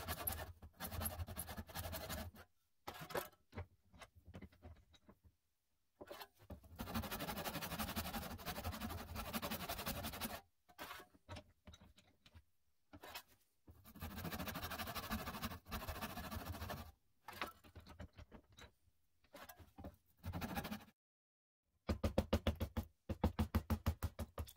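Hand saw cutting into an oak hatchet handle, shaping its top to fit the head's eye. It comes in spells of quick, even strokes broken by sudden silences, with a faster run of sharp strokes near the end.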